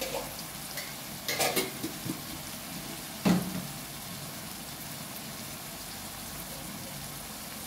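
Chopped onion, tomato and capsicum sizzling steadily in a kadai. There are a few short scrapes, and one sharp knock about three seconds in.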